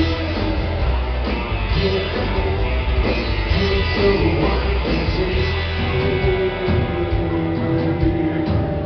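A live psychobilly trio playing: hollow-body electric guitar, upright bass and drums, with a man singing.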